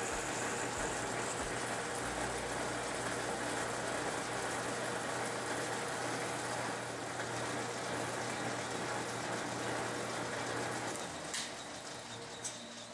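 Metal lathe running with a twist drill in the tailstock chuck cutting into a spinning steel bar: a steady motor hum under a dense cutting hiss. The sound drops off somewhat about eleven seconds in, with two short clicks near the end.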